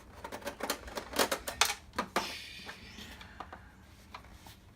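Rapid clicking and clattering of the plastic projector housing and small parts being handled, with a short scraping slide about two seconds in, then a few scattered clicks.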